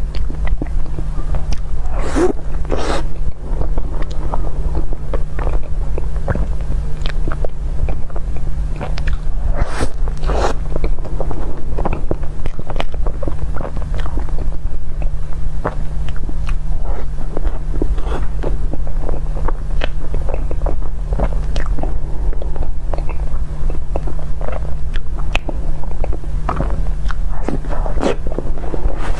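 A person biting and chewing soft chocolate crepe roll cake: a run of short, irregular chewing sounds over a steady low hum.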